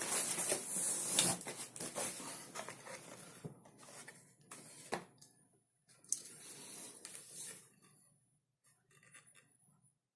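Hands handling the unboxed items: rustling and rubbing, with a couple of sharp clicks in the middle and a second spell of rustling, then it goes nearly quiet with faint ticks near the end.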